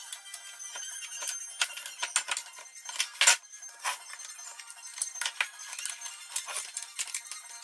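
Background music with a run of short, sharp clinks and taps of a screwdriver working at a wooden casting mould. The loudest knock comes about three seconds in.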